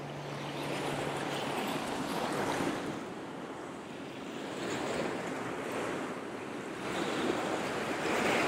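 Small Gulf of Mexico surf breaking and washing up the sand at the water's edge, a rush of foam swelling and fading every two to three seconds, the loudest wash near the end.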